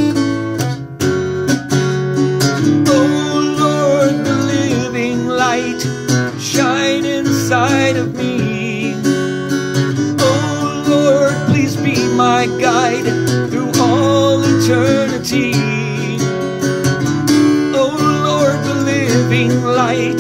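Acoustic guitar strumming steady chords through an instrumental break in a song, with a wavering melody line playing over them.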